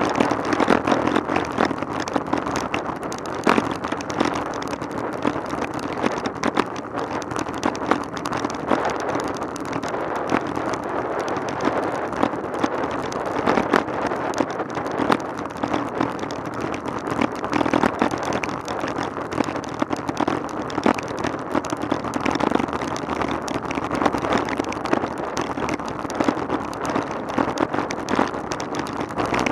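Riding noise picked up by a bicycle-mounted camera on a road bike: a steady rush of tyres on tarmac and wind, broken by frequent small knocks and rattles as the camera shakes over the road surface.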